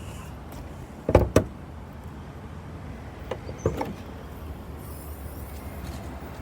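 Two sharp clunks about a third of a second apart, about a second in, then two fainter knocks a couple of seconds later: a car's door, lid or latch being worked.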